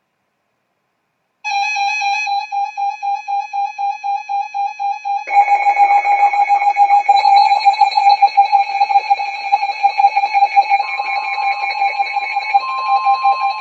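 Emergency alert tones: a rapidly pulsing electronic beeping alarm starts about a second and a half in, is joined a few seconds later by a louder, buzzier pulsing tone, and near the end a steady long tone sets in underneath. They signal the start of a flash flood warning.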